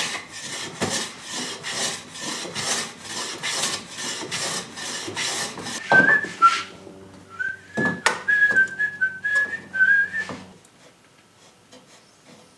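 Hand plane taking rapid shavings along the edge of a softwood board, about two or three strokes a second. After about six seconds a person whistles a short wavering tune for some four seconds, with a single knock near the middle.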